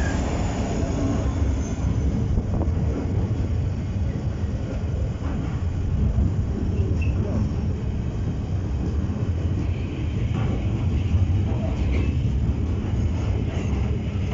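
Freight train passing at walking-to-moderate speed: a rake of tank wagons rolling by with a steady low rumble of wheels on rail and a few clicks over rail joints.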